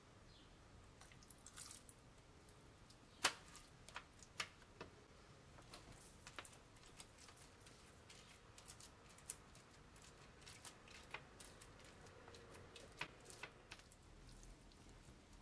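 Faint kitchen handling sounds: scattered small clicks and soft wet taps as raw meat slices are picked up and laid on a wooden cutting board, with one sharper click a little over three seconds in.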